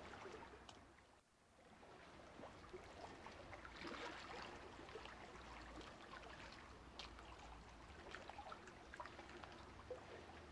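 Faint watery hiss with scattered small clicks and crackles, and a low steady hum underneath.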